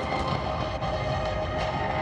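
Soundtrack music of a pyromusical fireworks show: sustained held chords, with no distinct firework bangs standing out.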